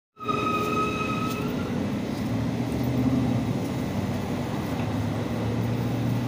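A motor vehicle engine running steadily with an even low hum. A brief high whistle-like tone sounds during the first second or so.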